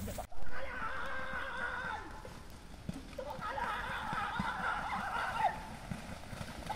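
Wavering, high-pitched calls or shouts in two stretches, after a brief loud burst just after a short dropout near the start.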